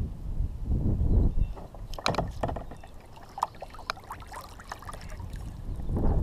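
Water lapping and splashing against a kayak hull in small irregular slaps, with wind rumbling on the microphone at the start and rising again near the end.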